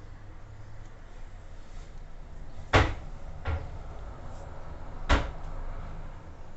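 Three sharp knocks or clunks: two about a second apart near the middle, the first the loudest, and a third about a second and a half later.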